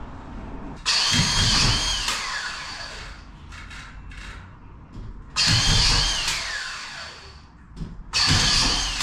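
A power drill run in three short bursts, each starting abruptly with a whine that rises, then falls as the motor winds down.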